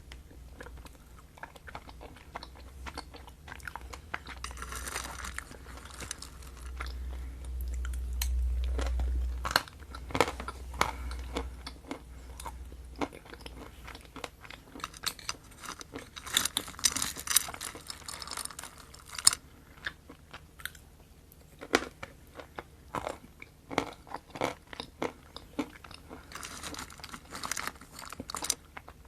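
Close-miked mukbang eating: wet, sticky chewing and mouth smacks with repeated bites, and a low rumble from about six to ten seconds in.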